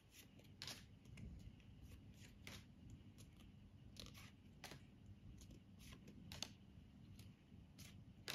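Pokémon trading cards being slid one by one through a small hand-held stack, giving faint, irregular flicks and clicks about once or twice a second.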